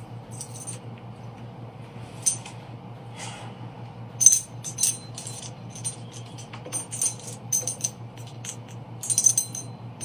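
Light metallic clinks and rattles at irregular intervals, with the sharpest about halfway through and a cluster near the end, over a steady low electrical hum.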